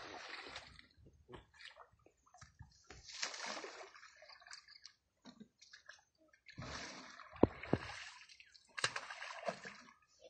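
Asian elephant moving in a muddy pool: water sloshing and splashing in several bursts a few seconds apart, with a few sharp knocks in the second half.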